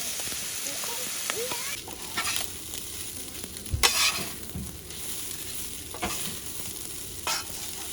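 Food sizzling in a frying pan with a steady hiss, broken by a few knocks and clinks of a utensil against the pan, the loudest about four seconds in.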